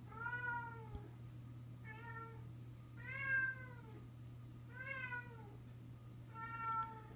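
A cat meowing five times, each meow rising and then falling in pitch, with a steady low hum underneath.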